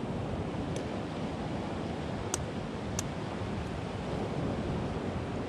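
Sea surf washing steadily on a rocky shore, with a little wind. Three faint sharp taps, the last two about half a second apart, as a hand-held stone knocks against rock.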